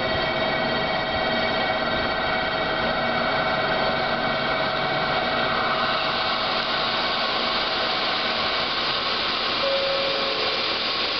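KiHa 185 diesel railcar approaching along the track: a steady rushing noise with a few constant tones, the noise growing stronger about halfway through. A brief short tone sounds near the end.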